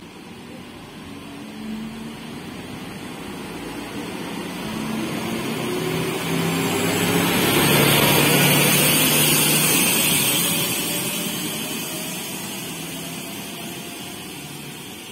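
PESA SA135 diesel railcar pulling away and passing close by. Its engine note rises in pitch as it accelerates and builds to a peak about halfway, with a hissing whine of wheels and transmission. It then fades steadily as the railcar draws away.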